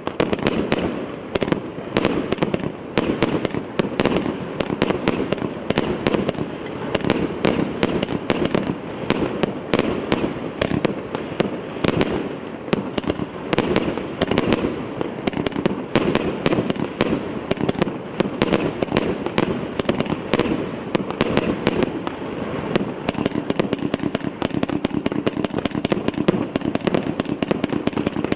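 A 120-shot firework battery (cake) firing shot after shot in rapid succession, several launches and bangs a second with no pause.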